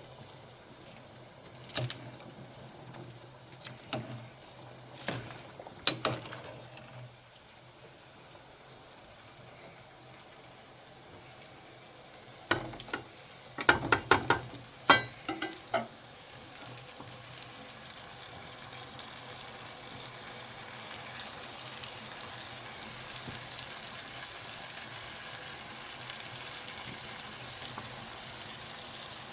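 Cooking in a pan: a few scattered knocks and clinks, then a quick run of sharper clatters about halfway through. After that a steady frying sizzle builds and holds for the last ten seconds or so.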